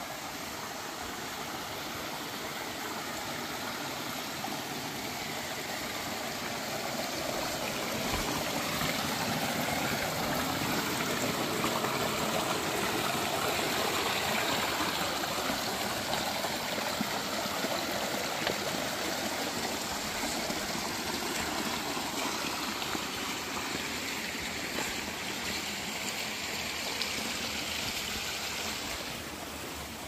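Small rocky forest creek running over stones, water trickling and splashing down a little cascade in a steady rush. It grows louder through the middle and eases off again near the end.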